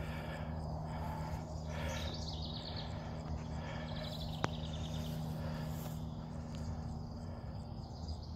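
Rural outdoor ambience: a steady background of insects with a low hum underneath, broken by two short, rapid high trills, one about two seconds in and one about four seconds in. A single sharp click sounds about four and a half seconds in.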